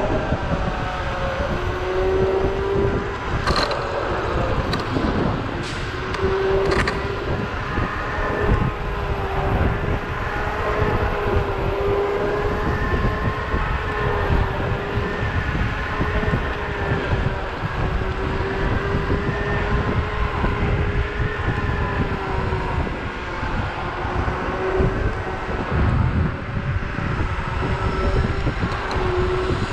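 Zero 10x electric scooter's hub motors whining in a steady tone that wavers slightly with speed, under heavy wind rumble on the microphone while riding. A few sharp clicks come between about four and seven seconds in.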